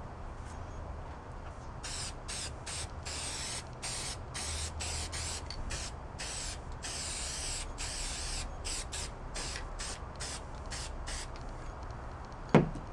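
Aerosol can of spray adhesive hissing in many short squirts and a few longer ones as glue is sprayed onto upholstery foam. Near the end comes one short, sharp squeak that falls steeply in pitch, louder than the spraying.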